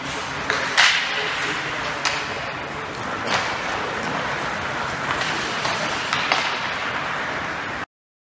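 Ice hockey play in an arena: steady scraping of skates on the ice with several sharp cracks of sticks and puck over the hall's ambience. The sound cuts off suddenly near the end.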